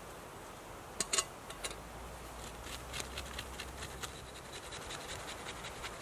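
Quick scraping strokes made by hand, roughly three a second, preceded by a few sharp clicks about a second in.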